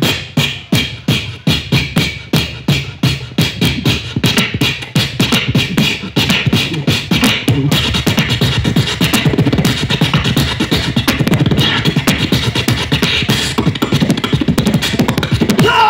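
Human beatboxing: mouth-made kick and snare sounds in a steady beat, which becomes much denser and faster about six seconds in.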